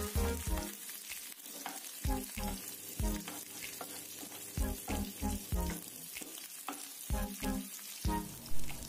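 Oil sizzling steadily in a frying pan as sliced shallots, garlic, bay leaves and bruised lemongrass are sautéed. A wooden spatula stirs and scrapes against the pan in short, repeated strokes.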